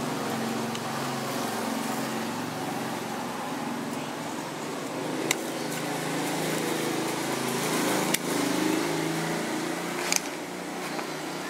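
Hot-air rework gun blowing steadily as it heats all the pins of an op-amp IC to desolder it from the circuit board. A few sharp clicks of a metal tool against the board and chip come about five, eight and ten seconds in.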